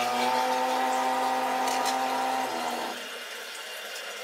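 Kitchen tap running into the sink, a steady rush of water with a humming tone in the pipes; about three seconds in the hum stops and the flow drops to a quieter hiss.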